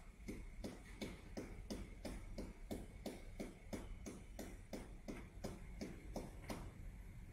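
Epson L3250 inkjet printer's internal mechanism clicking at an even pace, about three clicks a second, while its power light flashes busy; the clicking stops about six and a half seconds in.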